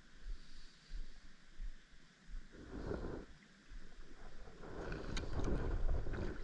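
Kayak paddle strokes in calm water: soft repeated swishes and splashes of the blade, growing busier and louder in the second half, over low thumps.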